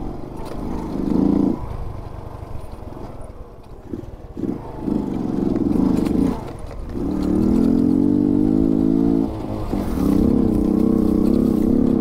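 Motorcycle engine heard from on board while riding, its note rising and falling with the throttle. It is quieter a couple of seconds in, then held at higher revs in longer stretches towards the end.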